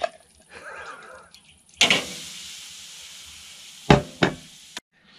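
A piece of meat goes into a hot frying pan about two seconds in and starts sizzling, a loud hiss that slowly settles. Two knocks of pan or utensil come near the end, and then the sound cuts off suddenly.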